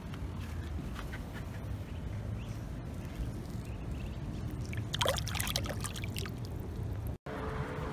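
Short splashes of water, about five seconds in, as a fish held by the lip is lowered into the water and let go by hand, over a steady low rumble.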